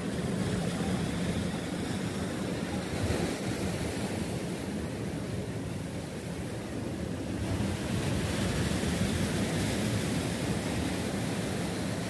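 Sea waves breaking and washing up on a beach: a steady rushing that swells and eases several times, fullest in the later part.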